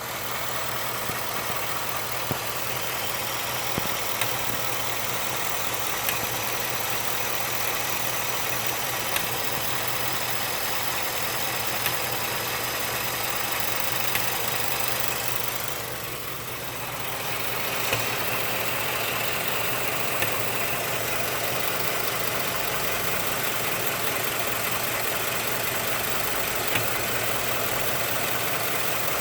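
Ford F-150's 5.0-litre V8 idling steadily, carrying an unexplained strange noise from the engine, with sharp isolated clicks every few seconds.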